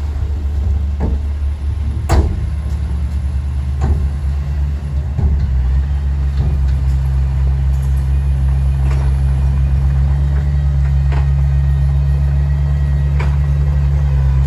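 Heavy diesel engine of earthmoving machinery running steadily under load, with sharp knocks every second or two. The engine settles into a steady note about five seconds in.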